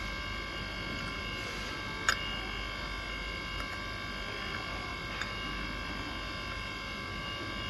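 A steady electrical whine of several high tones runs throughout. Over it come a sharp click about two seconds in and a fainter click around five seconds, from parts being handled during repair work.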